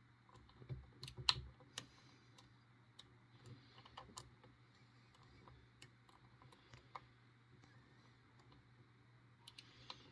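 Metal lock pick clicking and scraping against the wafers of a small TSA luggage wafer lock as it is picked under tension. The clicks are faint and irregular, with a cluster of sharper ones about a second in.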